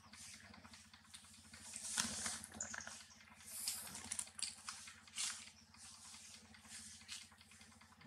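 Dry leaf litter rustling and crackling in short, irregular bursts as small monkeys move about on it, with a sharp snap about two seconds in, over a faint steady low hum.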